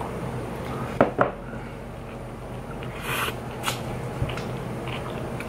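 A person picking up a soft taco and biting into it, then chewing: two sharp clicks about a second in, a short hissing rush around three seconds in, and a few faint mouth and handling sounds.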